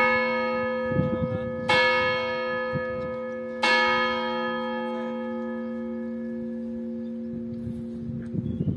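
The Graz Clock Tower's bell striking: three strokes about two seconds apart, each leaving a long ringing hum that slowly fades after the last one.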